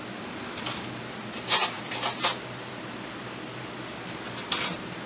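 A wooden kitchen drawer being pulled open and cutlery clattering inside it as a spoon is taken out. There are three short rattles about a second and a half in, and one more near the end.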